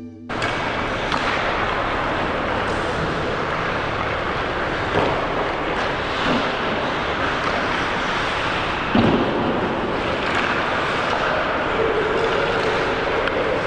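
Ice-rink sound of a pickup hockey game: a steady scraping hiss of skates on the ice with a few sharp knocks of sticks and puck, the loudest about nine seconds in.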